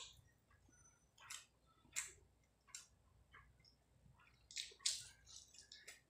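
Soft, wet eating sounds: chewing and fingers mashing rice with curry on a plate, heard as irregular short, sharp clicks and squishes.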